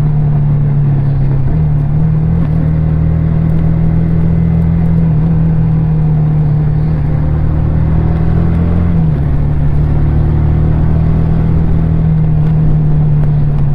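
Yamaha R15 V3's 155 cc single-cylinder four-stroke engine and exhaust running at a steady, nearly constant speed, with only a slight change in pitch about nine seconds in.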